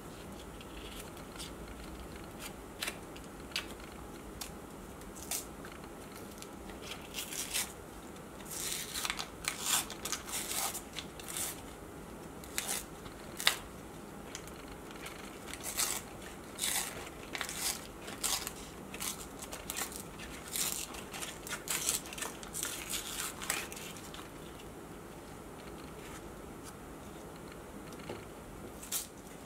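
Paper wrappers being peeled and torn off cone ice creams by hand: irregular crinkling and tearing, sparse at first, busiest through the middle, then thinning out near the end.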